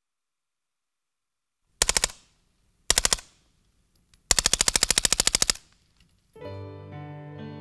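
H&K MP5SD2, a 9 mm submachine gun with a built-in suppressor, firing fully automatic: two short bursts and then a longer burst of just over a second, each shot a distinct crack. Music begins near the end.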